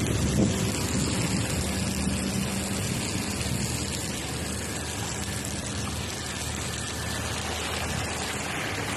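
Steady rush of running water spreading over a paved patio as it is washed down, with a faint low hum underneath.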